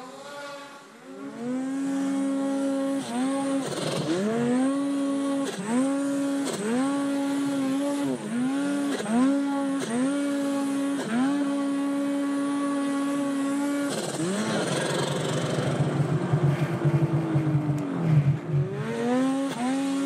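Two-stroke mountain snowmobile engine revved in short repeated blips, rising and falling about once a second. It is then held at a steady pitch. From about two-thirds of the way in, it drops lower and turns rough and louder for several seconds under heavy load in deep snow, before picking back up to a steady pitch near the end.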